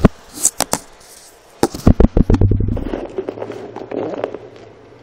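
Knocks and bumps from a phone and dishes being handled on a kitchen counter, then a rapid rattle that speeds up and stops about three seconds in, followed by a low steady hum.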